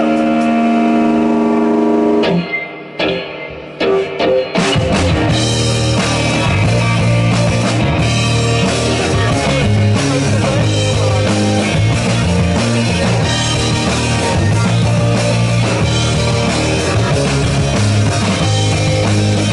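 Live rock band opening a song. A held electric guitar chord rings for about two seconds and breaks off into a short, sparse gap with a few hits. About four and a half seconds in, the full band comes in with drum kit, bass and guitar playing steadily and loud.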